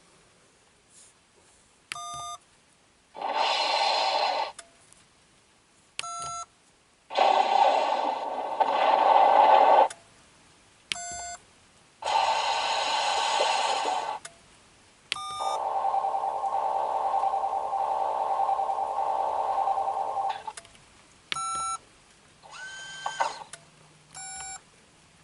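Sound effects from a K.I.T.T. replica's dashboard console: a short electronic beep, then a longer buzzing electronic effect lasting a few seconds. This repeats about five times, with the effects differing in length and pitch, and one short gliding tone near the end.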